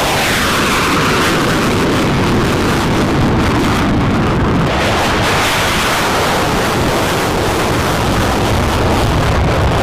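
Fighter jet engine roar, a loud steady rushing noise with a falling sweep in pitch in the first second as the jet passes.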